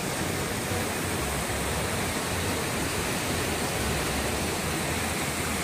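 Steady rush of a waterfall cascading into a rock gorge pool.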